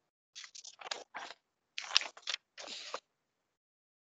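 Paper notebook pages rustling and sliding as they are handled, in a series of short rustles over about three seconds.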